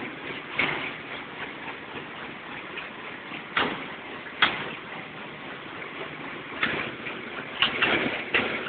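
Corn flattening machine for emping jagung running: a steady mechanical noise with irregular clicks and knocks, sharper ones about three and a half and four and a half seconds in and several close together near the end.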